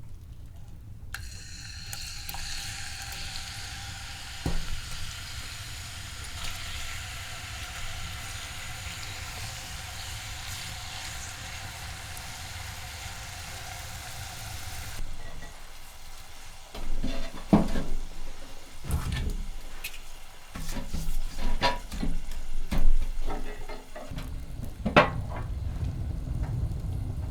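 Food sizzling in a hot pan: a steady hiss that starts abruptly about a second in and cuts off about halfway through. After that come scattered knocks and clatter, like a pan and utensils being handled.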